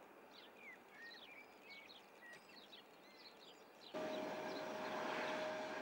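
Small birds chirp faintly, many short quick calls, for about four seconds. Then, suddenly and much louder, a jet airliner (the Airbus A350-900) is heard running close by: a steady whine over a rushing noise.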